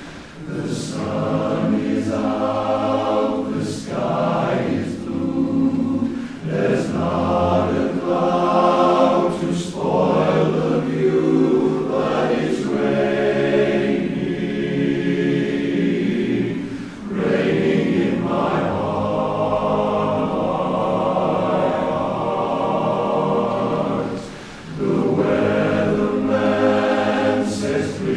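Barbershop chorus singing a cappella in close harmony: many voices holding sustained chords, with short breaks between phrases about two-thirds of the way through and again near the end.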